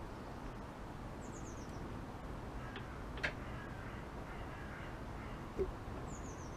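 Two short, sharp metallic clicks about two seconds apart, from pliers working a shaft key into its slot on a Mercury four-stroke outboard, over a steady low outdoor background. Quick high descending bird chirps come twice, faintly.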